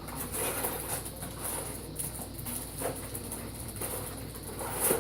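Rummaging through household odds and ends: scattered light knocks, clicks and rustles as things are moved about in a search for a roll of tape.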